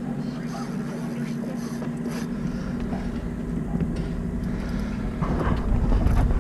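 Boat motor running steadily, an even low hum, with wind rumbling on the microphone and growing louder near the end.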